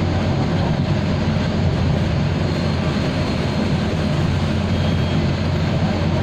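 Mercedes-Benz O405G articulated diesel bus running steadily, heard from inside the cabin: a loud, even drone of the engine and ZF drivetrain with road noise.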